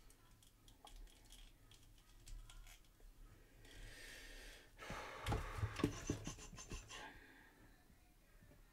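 Faint small plastic clicks as an action figure's jointed parts are worked by hand. About four seconds in comes a louder burst of rustling with several knocks, from handling the figure's cardboard box and its packaging insert.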